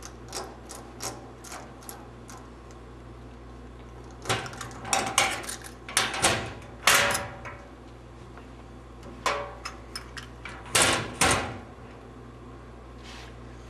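Metal hallway locker being handled: a few light clicks, then clusters of rattling and clanking from the latch and door about four seconds in and again about ten seconds in, over a steady low hum.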